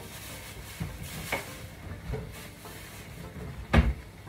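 Kitchen handling sounds: a plastic bag crinkling and several short knocks of things on the counter, the loudest a single thump near the end, over a steady background hiss.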